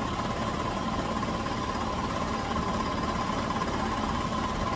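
Chevy Venture's 3.4-litre V6 idling steadily, with a thin steady whine over it. The engine is being run to warm up so the new thermostat opens and air bleeds out of the cooling system.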